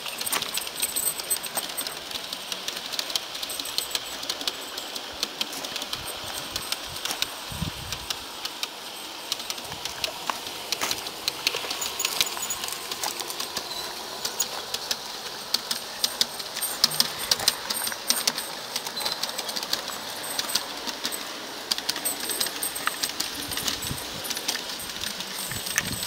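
Long LGB garden-railway freight train rolling along its track: a dense, irregular clicking and rattling of the wagons' wheels and couplings that runs on without a break.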